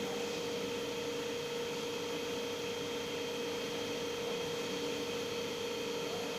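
Steady background hum with a constant mid-pitched tone and a faint even hiss; no distinct sounds.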